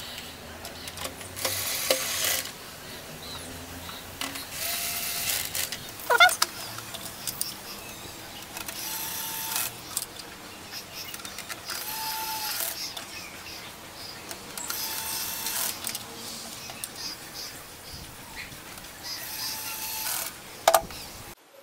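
Black+Decker SmartDriver cordless screwdriver whirring in six short runs of about a second each, driving screws in one after another. A brief rising squeak comes about six seconds in.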